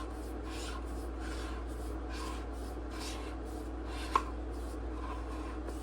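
Screw-threaded battery section of an Imalent SR32 flashlight being unscrewed by hand: soft repeated scraping rubs with each twist of the long threads, and one sharp click about four seconds in.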